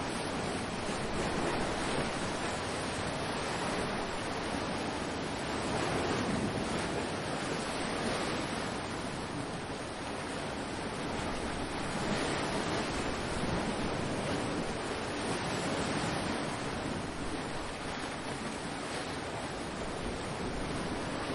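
Ocean waves washing ashore in a steady surf, swelling and easing every few seconds, with some wind on the microphone.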